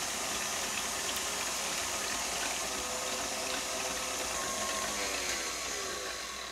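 Electric stand mixer running with its wire whisk beating oil and sugar in a metal bowl: a steady motor whir mixed with liquid whisking. Its pitch and level drop near the end.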